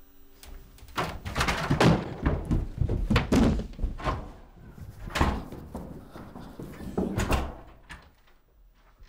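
A series of heavy, irregular thuds and slams, about nine of them, that stop about eight seconds in.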